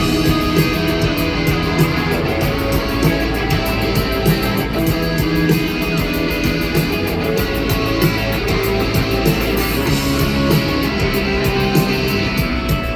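A live rock band playing through a loud PA: guitars over a steady drum beat.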